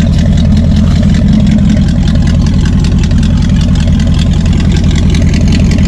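1965 Ford Mustang fastback's engine idling steadily while it warms up, with an even, rapid low pulse, its idle mixture just adjusted to smooth it out.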